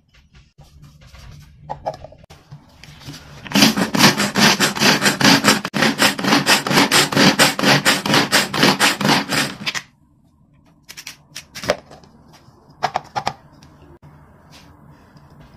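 Pull-cord manual food chopper grinding black sesame seeds with sugar: a fast run of rattling pulses from the spinning blades, starting about three and a half seconds in and lasting about six seconds. A few sharp clicks follow near the end.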